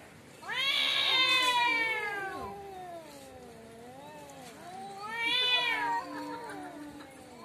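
Domestic cats in a fight standoff, yowling: long drawn-out calls that waver up and down in pitch, loudest from about half a second in and again around five seconds in.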